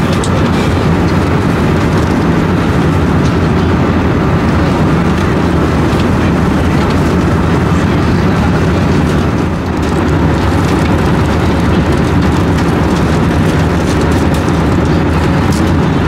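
Steady cabin noise of an Airbus A320 in cruise: the constant rush of airflow and engines, with a few faint clicks.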